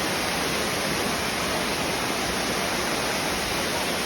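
Steady rushing of water: an even, unbroken hiss.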